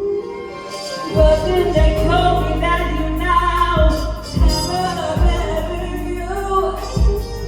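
A woman singing live with a band: held, sliding sung notes over deep sustained bass notes and a beat of low drum hits.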